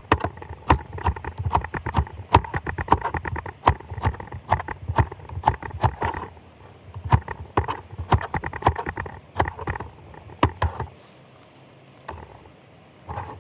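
A rapid, irregular run of clattering knocks, some with a slight ring, that stops about eleven seconds in.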